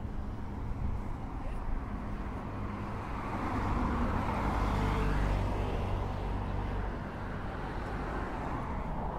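Street traffic noise with one road vehicle passing: its sound swells from about three seconds in, is loudest around the middle, and fades away a couple of seconds later.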